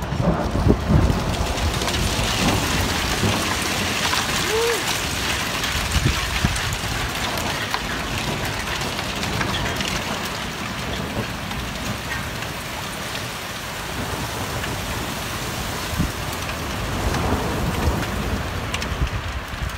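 Heavy rain falling steadily during a thunderstorm, with low rumbles of thunder, one swelling near the end.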